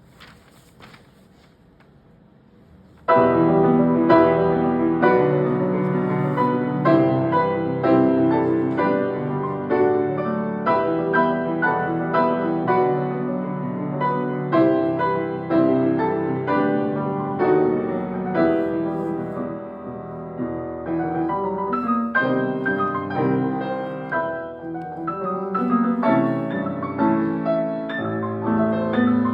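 After about three seconds of quiet hall, a piano duet starts abruptly and loudly, playing a busy passage of many rapid, overlapping notes.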